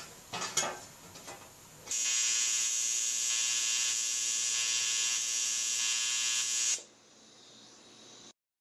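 A few light knocks of sheet metal being handled, then about two seconds in a TIG welding arc strikes and buzzes steadily for about five seconds, the even AC buzz of TIG-welding aluminium sheet. The arc stops abruptly, leaving a faint steady hum that cuts off near the end.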